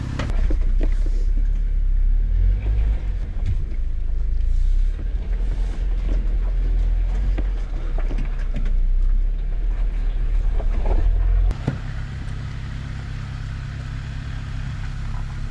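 Jeep Wrangler engine running at crawling speed over rocks: a deep rumble with scattered knocks. About eleven and a half seconds in, it changes abruptly to a quieter, steady engine hum.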